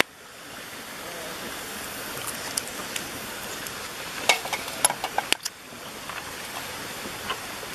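Steady hiss of a wood campfire, with a cluster of sharp clicks and taps about halfway through.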